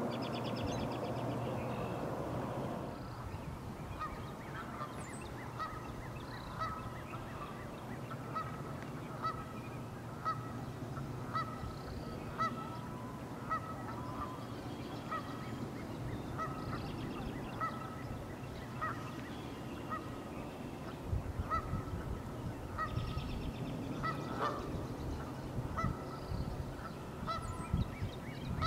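Canada geese honking, short calls repeated about once a second. A low rumble fades out about three seconds in.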